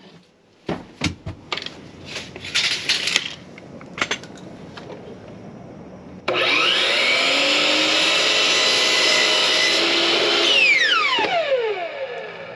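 A few knocks and clicks, then an electric power tool's motor starts suddenly about six seconds in, spins up and runs steadily for about four seconds. It then winds down with a falling whine as it coasts to a stop.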